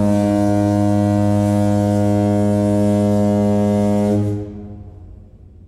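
A ship's horn sounding one long, deep, steady blast that cuts off about four seconds in and dies away in an echo.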